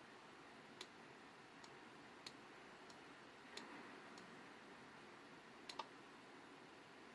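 Near silence: a steady faint hiss with a few light ticks at irregular intervals, two in quick succession near the end.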